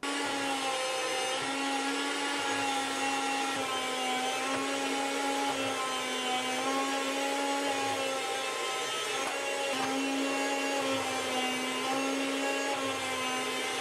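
Chef'sChoice 615 electric food slicer running steadily, its motor hum wavering slightly in pitch as a block of raw pork is pushed back and forth against the spinning blade, slicing it thin.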